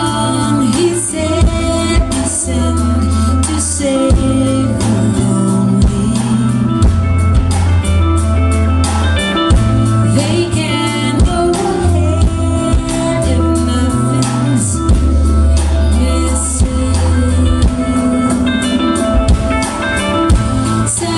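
Live band music: a woman sings into a microphone over electric guitar and a deep bass line whose notes change every second or two.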